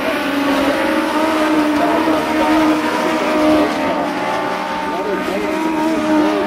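A pack of Legends race cars running together on a small oval, several four-cylinder Yamaha motorcycle engines at once, their pitches overlapping and wavering as the cars go round.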